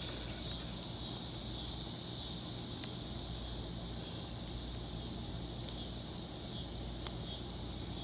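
Steady high-pitched chorus of insects, with a few faint light clicks.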